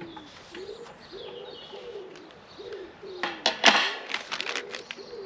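A pigeon cooing over and over, a low soft coo about twice a second, with small birds chirping faintly. About three seconds in comes a short burst of rubbing and clatter, the loudest sound.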